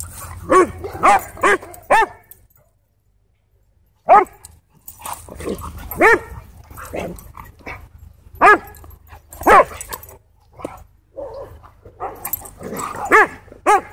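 Dogs barking during rough wrestling and chasing play: short, loud barks, some single and some in quick runs of two to four. The sound cuts out completely for about a second and a half near the start.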